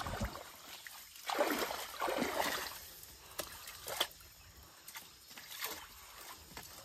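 Water splashing and sloshing as a large slatted cage fish trap is pushed down into shallow water, with a few sharp knocks in the second half.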